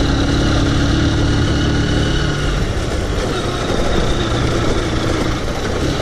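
Honda CBF 150's single-cylinder four-stroke engine running steadily as the motorcycle is ridden, under a dense haze of wind and road noise.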